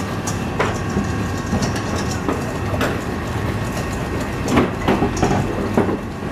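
Wire whisk clicking and scraping against a stainless steel mixing bowl as a yellow mixture is whisked by hand, in irregular quick strokes over a steady low hum.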